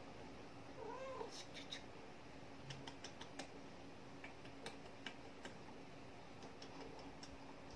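Orange tabby cat giving one short meow about a second in, its pitch rising then falling, followed by a scatter of faint sharp clicks.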